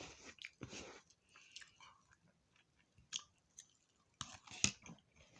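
Close-up chewing of fish and tater tots: irregular wet mouth clicks and smacks, with a sharper bite about four and a half seconds in.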